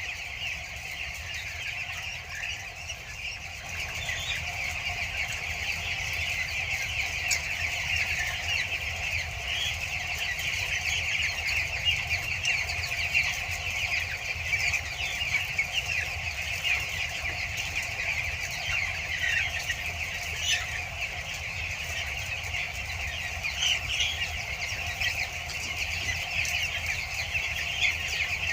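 A large flock of two-week-old broiler chicks peeping continuously, with many overlapping high chirps, over a steady low hum.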